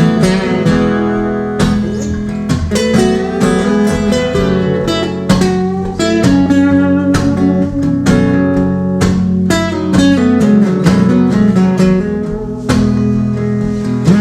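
Acoustic guitar playing an instrumental passage with no singing: picked notes and strummed chords over sustained low notes.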